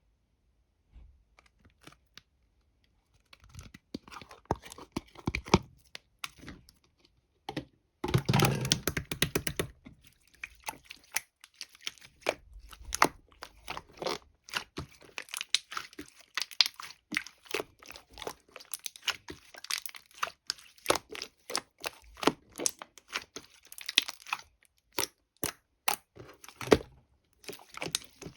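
Close-up crinkling, crackling and tearing handling noise, with a dense run of sharp crackles about eight seconds in and irregular crackles and clicks after that.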